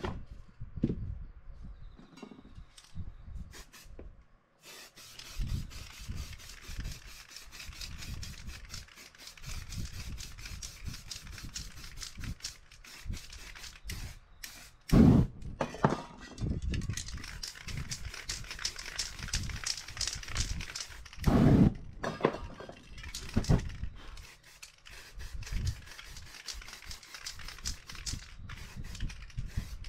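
Aerosol spray-paint can hissing in long sprays; the hissing starts about four seconds in and pauses briefly a few times. It is broken by a few loud low thumps, about halfway through, again a few seconds later, and near the end.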